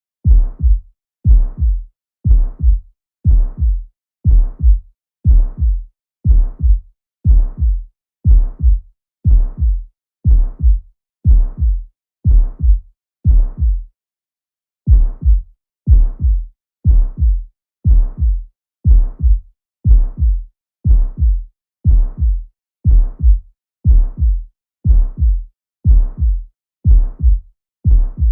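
Heart sounds heard through a stethoscope, beating steadily a little over once a second, with each beat carrying the harsh crescendo-decrescendo systolic ejection murmur of aortic stenosis. The beating stops briefly about halfway through, then resumes.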